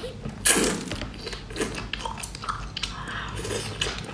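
Close-miked eating: a loud slurp as a chewy strip of chili-dressed cold seafood is sucked into the mouth about half a second in, then wet chewing with small clicks.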